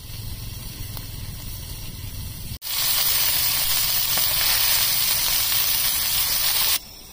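Steady hiss of food cooking on a camp stove, heard in separate clips. It is quieter with a low hum for the first two and a half seconds, becomes loud and bright for about four seconds, then drops away sharply near the end.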